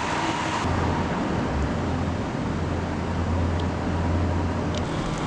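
Car driving on a snow-covered road: steady road noise with a low engine hum.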